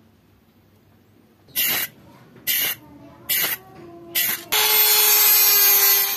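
Aerosol spray can hissing in four short sprays about a second apart, then one longer spray of about two seconds.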